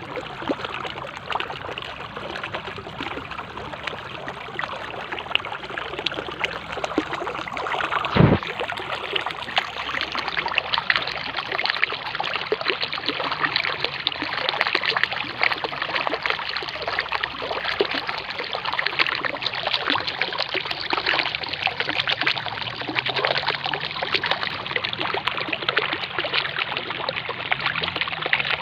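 Mountain stream flowing steadily over stones. A single thump about eight seconds in.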